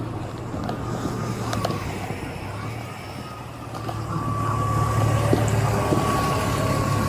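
Car engine running at idle, a steady low hum that grows louder about four seconds in.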